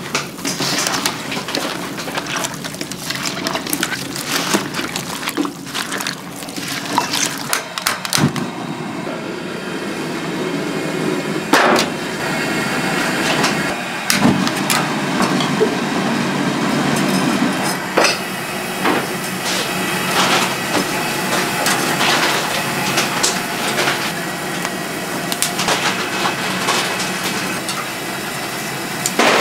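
Wet squelching and crackling of seasoning and sliced radish being mixed by hand in a large aluminium stockpot, then, from about ten seconds in, a steady rush of lit gas burners with scattered clicks of tongs on a wire grill rack.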